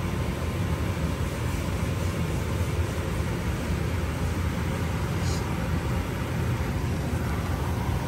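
Gas furnace running: a steady low rumble from the burners firing and the inducer fan.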